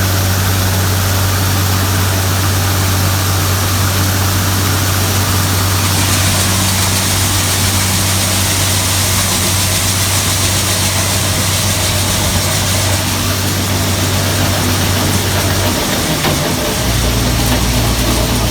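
Heavy farm-machinery engine running steadily with a strong low hum and a wide rushing noise over it. Near the end the hum breaks off and a deeper one takes over.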